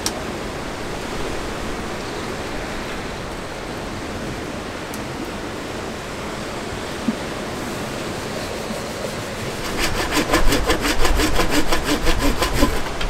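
Steady rushing noise of a winter storm wind. Then, about ten seconds in, a hand saw cuts into a log with quick, even back-and-forth strokes, louder than the wind.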